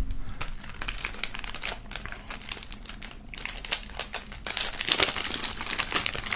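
Cellophane shrink wrap being peeled off a CD digipak and crinkled in the hands, a dense run of crackling that grows louder about halfway through.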